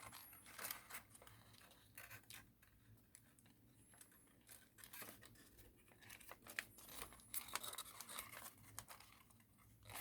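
Faint rustling and crinkling of thin origami paper being creased and shaped by hand, in irregular soft crackles.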